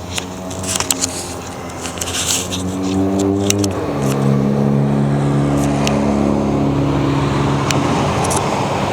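A road vehicle's engine running close by, a steady hum whose pitch shifts about four seconds in, with scattered light clicks.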